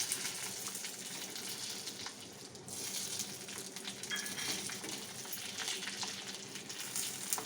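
Masala-stuffed capsicums sizzling in hot oil in a kadhai as they are laid in over the fried ginger-garlic paste. The sizzle is a steady hiss that dips briefly a couple of seconds in, with a few light clicks.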